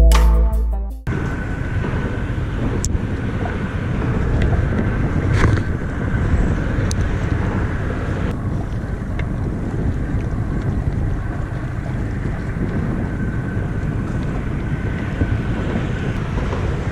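Electronic music cuts off about a second in, leaving wind buffeting the microphone over a boat's engine running steadily, with a few faint ticks.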